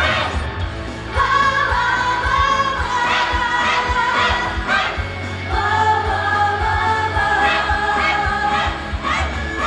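Japanese idol-pop song performed live: girls' voices singing together in long held notes over a backing track with a steady beat.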